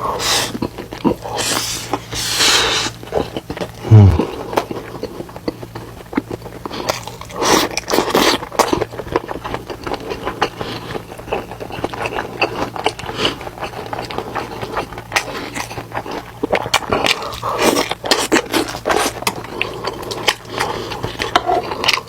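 Close-miked eating sounds of someone chewing spicy stir-fried squid: many wet smacking clicks with several short noisy slurping bursts. About four seconds in comes a short, loud low thump that drops in pitch.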